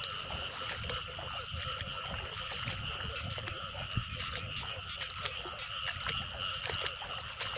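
Rice-field frogs calling in a flooded paddy, a dense steady chorus with many short, scattered calls over it.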